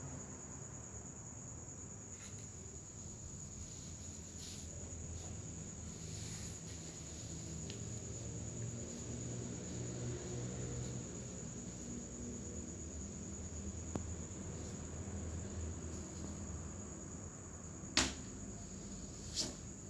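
Crickets trilling steadily on one high pitch over a low background rumble, with two sharp clicks near the end.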